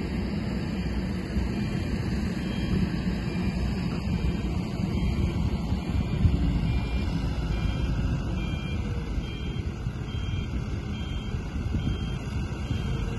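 Diesel engine of an ACE pick-and-carry crane running steadily, with wind buffeting the microphone. A faint high beep repeats about twice a second.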